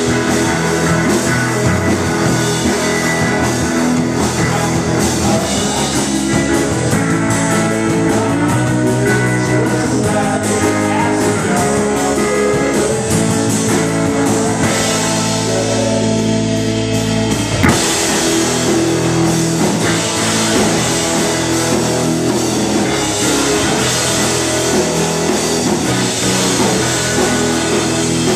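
Live rock band playing: electric bass, drum kit and two electric guitars. Past the middle the drums drop away briefly under held chords, and the full band comes back in on a sharp hit.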